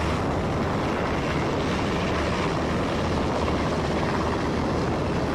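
Navy MH-60S Seahawk helicopter in flight, its rotor and turbine noise running steadily.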